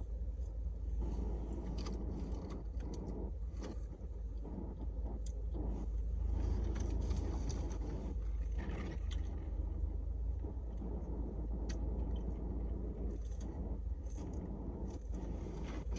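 Steady low rumble with scattered small clicks and rustles.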